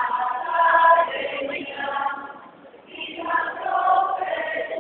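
A large group of voices singing together in chorus, two sung phrases of held notes with a short break a little over two seconds in.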